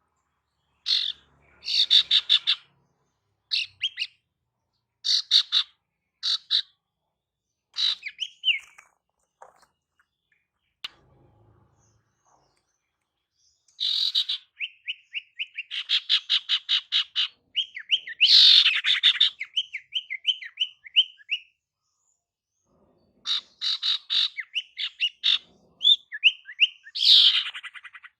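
Female sirtu (cipoh, common iora) calling: short chattering bursts of rapid notes every second or so. About halfway through it breaks into a longer run of quick slurred notes, about five a second, then resumes the chattering after a brief pause.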